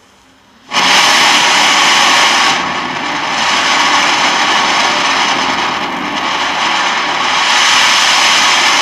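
Rocket cracker firework burning in place and spraying sparks, a loud steady hissing rush that starts suddenly about a second in and holds, dipping slightly for a moment around the third second.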